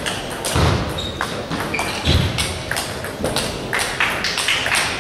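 Celluloid-type table tennis balls tapping on tables and bats in a large sports hall, in an irregular scatter of sharp clicks. Two low thuds come about half a second and two seconds in.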